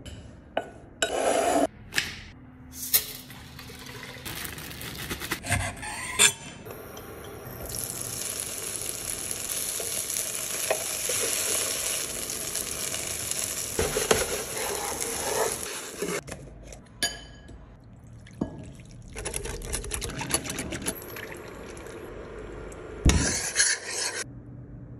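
Tofu cubes frying in a pan with a steady sizzle from about seven seconds in to about sixteen, between short knocks and clatter of bowl, pan and spoon as the tofu is tossed and a thick sauce is stirred.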